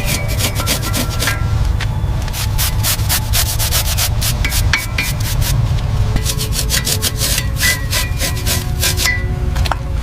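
Rapid hand rubbing strokes on a surface, several a second, with a short lull about six seconds in, over a steady low rumble.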